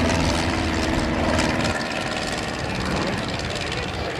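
Light single-engine liaison plane flying past, its small piston engine and propeller droning steadily; the sound eases a little after about two seconds.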